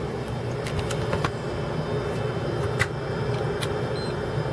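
Steady fan-like hum from the powered workbench equipment, with a few faint light clicks and a brief, faint high beep about four seconds in.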